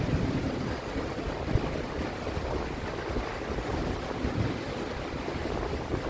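Steady rain falling, an even hiss, with some wind buffeting the microphone.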